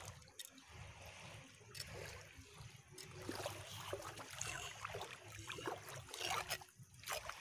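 Seawater splashing and trickling in ankle-deep shallows as hands scoop water over a large stingray to rinse sand off it: uneven small splashes, one after another.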